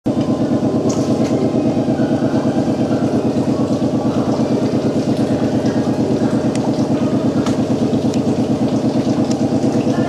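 Motor of a glass hand-edging grinder running steadily, a loud hum that pulses evenly about eight times a second, with a few faint clicks.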